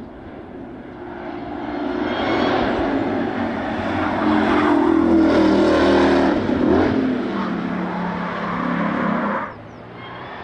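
Ford Mustang GTD's supercharged 5.2-litre V8 at full speed on track, growing louder as the car approaches and passes, then cutting off abruptly near the end.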